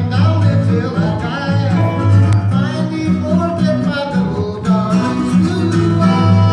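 Live country-style acoustic band: a strummed acoustic guitar, an acoustic bass guitar and a lap-style slide guitar playing together, with a man singing.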